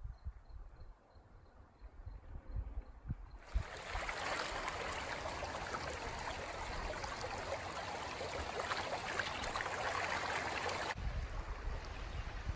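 Shallow creek water running, heard close as a steady rushing hiss that starts abruptly a few seconds in and cuts off shortly before the end. Before it there are only faint low thumps.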